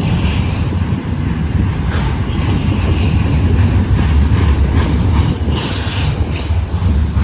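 Freight train rolling slowly past, its wheels clicking and clacking over rail joints above a steady, loud low rumble.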